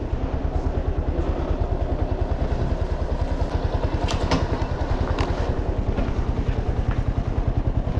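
Motorcycle engine running at low revs with a steady, fast, even pulse, with a few sharp clacks about halfway through as it rides over rough cobblestone paving.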